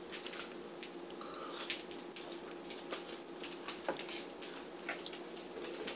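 Quiet chewing, with a few faint clicks of a fork on a plate over a faint steady hum.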